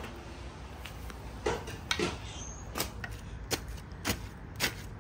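Shovel blade chopping down into soft garden soil, a sharp crunching strike about every half second to second, starting about a second and a half in.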